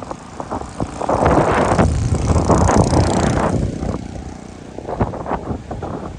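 A road vehicle passing close by on the bridge: a rush of engine and tyre noise that builds from about a second in, peaks, and fades away near four seconds in.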